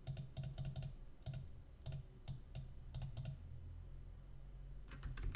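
Quick runs of computer mouse clicks as pixels are placed one at a time in a drawing program. The clicking stops a little past the middle and starts again near the end.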